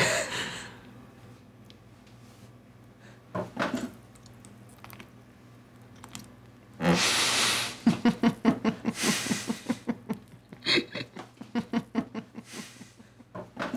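Close breathing and mouth sounds from two people biting into the same sausage: a short sound about three and a half seconds in, a loud breath about seven seconds in, then a run of short, quick sounds.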